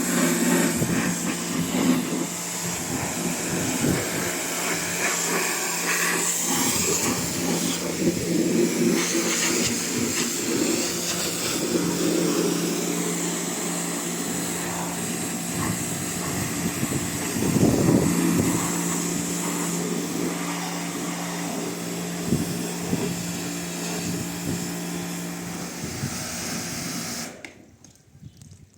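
WAP pressure washer running, its motor humming steadily under the hiss of the high-pressure water jet spraying silage residue off farm implements. It cuts off suddenly near the end.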